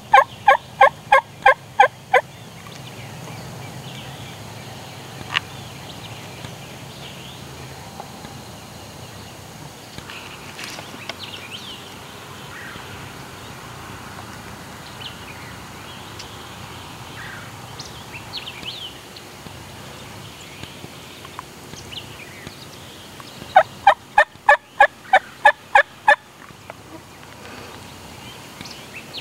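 Wild turkey yelping: a run of about ten loud, evenly spaced notes at the start and another run of about a dozen near the end, with faint songbird chirps in between.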